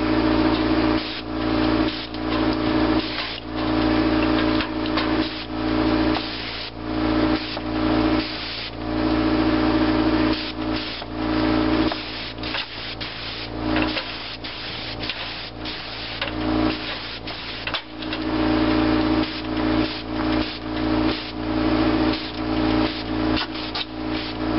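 Air-assist airless paint sprayer in use: the gun hissing as it sprays paint in repeated passes, each a second or two long, over a steady motor hum.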